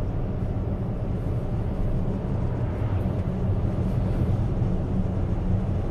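A car being driven at steady speed, heard from inside the cabin: an even, low rumble of tyre and road noise with no changes.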